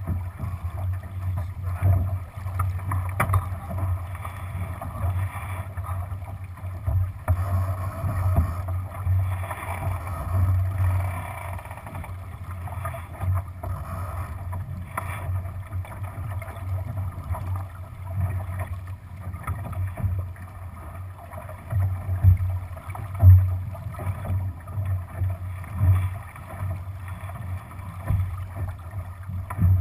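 Wind buffeting the microphone of a camera mounted on a Lightning sailboat's deck, over water rushing along the hull as the boat sails under spinnaker. The rumble comes in irregular gusts, with a few louder thumps a little past the twenty-second mark.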